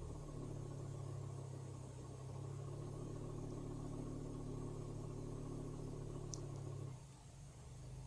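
Hyundai/Kia G4KD 2.0-litre four-cylinder petrol engine running at a steady speed, heard from inside the car's cabin; it drops noticeably in level about seven seconds in. This is an engine the owner says has piston knock and vibration.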